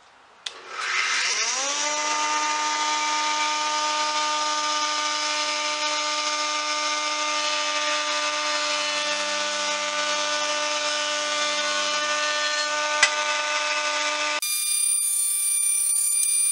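A benchtop woodworking jointer switches on with a click and its motor and cutterhead spin up to speed, rising in pitch over about a second, then run at a steady whine. About 14 seconds in, the sound switches abruptly to a different, higher steady whine.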